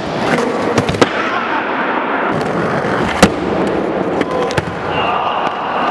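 Skateboard with three sideways-mounted trucks rolling on concrete and plywood, a steady wheel noise, broken by several sharp clacks of the board hitting the ground, the loudest about three seconds in.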